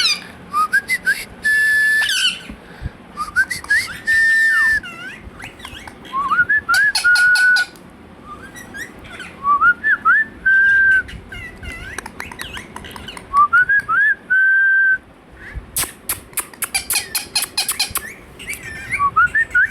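Indian ringneck parrot whistling the same phrase over and over, about every three seconds: a few quick rising chirps and then a steady held note. Bursts of sharp, scratchy chatter come in between.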